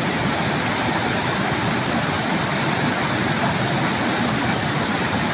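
Fast-flowing floodwater rushing, a loud, steady, even noise.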